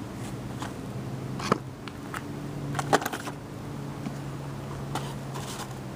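Ammunition boxes and cartridges being handled and moved, with a few sharp knocks and clatters over a steady low hum.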